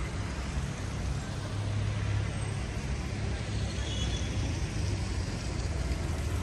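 City road traffic: a steady low rumble of cars going by.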